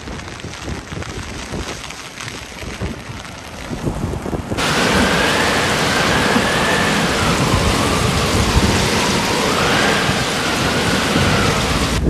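Storm surf on a pebble beach: wind gusting on the microphone over the rumble of breaking waves. About four and a half seconds in, the sound switches abruptly to a louder, steady roar of large waves breaking and foaming, with a faint wavering whistle running through it.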